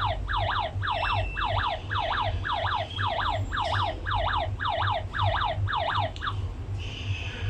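Kerui J3 wireless alarm siren sounding in alarm mode, triggered over 433 MHz by the W181 panel: a fast repeating falling wail, about two sweeps a second, with a low hum underneath. The siren cuts off about six seconds in.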